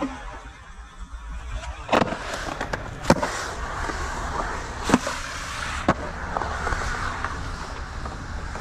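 Skateboard wheels rolling on a concrete bowl, broken by four sharp clacks of the board landing and striking the concrete, roughly a second apart.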